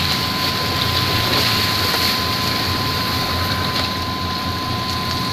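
Heavy flatbed truck's diesel engine running steadily at low revs as the loaded truck creeps forward, with a steady thin high tone and hiss over it.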